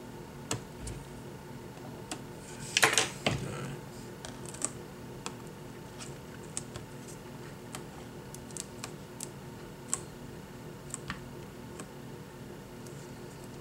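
Small clicks and taps of delicate hand work on an opened iPad mini, trimming and removing loose adhesive tape, with a louder scraping rustle about three seconds in. A faint steady hum runs underneath.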